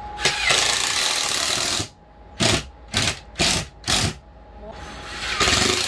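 Cordless drill driving a screw up into a wooden furring strip overhead: one run of about a second and a half, four short bursts about half a second apart, then another long run near the end.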